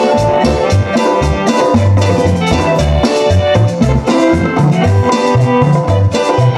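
Lively dance music from a band: tuned instruments playing a melody over drums and a bass line that pulses at a steady beat.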